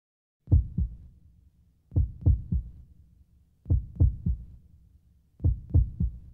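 Deep, heartbeat-like thumps in four groups, the first of two beats and the rest of three, a group about every 1.7 seconds.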